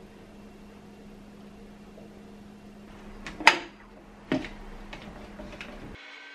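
Two sharp knocks a little under a second apart, about three and a half seconds in, with a few lighter clicks after: glass and blender jars being set down on a kitchen counter, over a steady low hum. Background music starts abruptly near the end.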